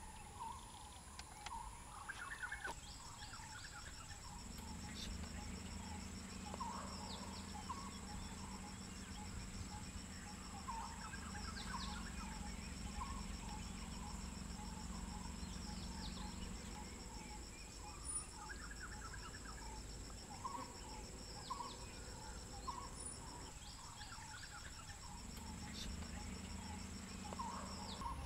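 Wild-area ambience: insects trilling steadily on high continuous tones, with repeated short bird chirps. A low steady hum comes in after about four seconds, fades about two-thirds of the way through and returns near the end.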